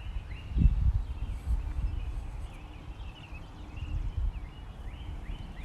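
Wind buffeting the microphone in uneven low gusts, strongest about half a second in, with small birds chirping repeatedly in the background.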